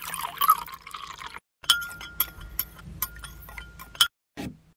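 Water pouring from a glass pitcher into a textured drinking glass over passion fruit and lemon honey, lasting about a second and a half. Then a series of sharp clinks on the glass, which rings on between them and stops near the end.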